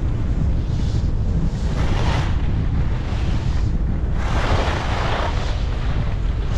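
Wind buffeting the microphone of a skier moving downhill, a steady low rumble, with skis scraping across the snow in several swelling hisses as the skier turns, the longest and loudest about four to five seconds in.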